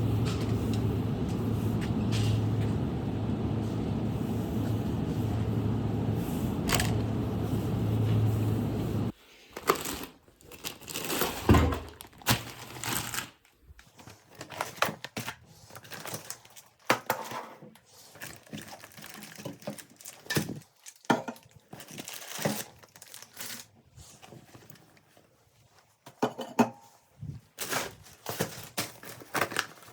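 A steady humming, whooshing noise, like a running appliance, that cuts off abruptly about nine seconds in. It is followed by scattered clicks, crinkling and rustling of things being handled.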